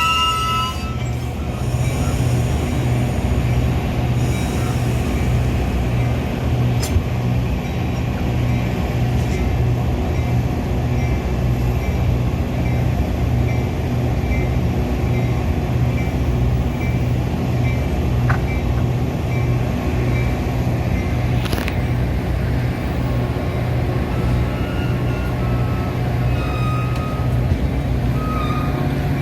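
Metra commuter train running: a steady low rumble with an even pulsing beat, about two pulses a second, and a few faint squeaks and clicks.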